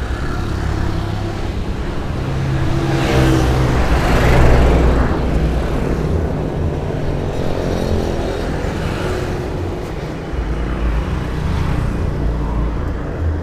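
Street traffic: motorbikes and cars passing close by, over a steady low engine hum. The loudest pass swells and fades about three to five seconds in, and smaller ones follow near the middle and toward the end.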